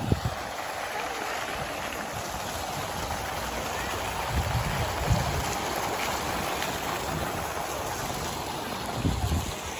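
Water pouring steadily from a fountain spout shaped like a giant wine bottle and splashing into a pool. Two brief low rumbles come about halfway through and near the end.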